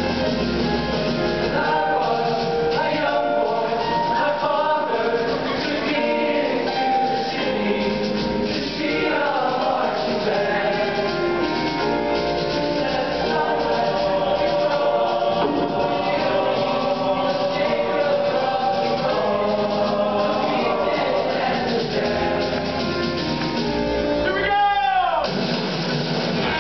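Men's show choir singing in parts over an amplified band, heard live from the audience. Near the end the music drops in a steep falling glide for about a second before the singing resumes.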